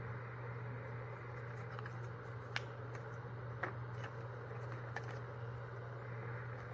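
A few soft clicks and taps of school supplies and packaging being handled and unpacked, over a steady low room hum.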